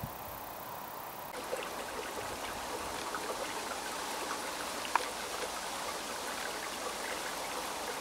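Small forest stream trickling steadily, with a few faint ticks and one sharper tick about five seconds in.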